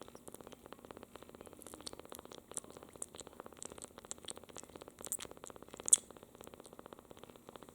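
Two-week-old kitten purring in a fast, even pulse, with small wet clicks of licking at a finger scattered through it. One sharper click about six seconds in is the loudest sound.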